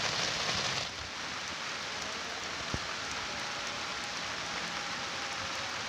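Steady rain falling on flooded rice paddies and wet mud, an even hiss that drops a little in level about a second in.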